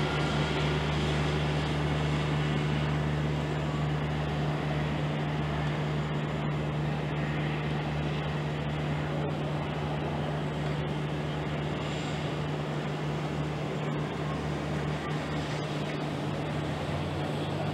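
Steady road-traffic hum of vehicle engines and tyres, with a constant low drone throughout.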